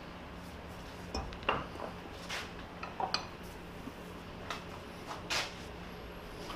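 Light metal clinks and scrapes, a handful spaced irregularly over several seconds, as a cast iron compressor head is handled and set in a steel bench vise, over a low steady shop hum.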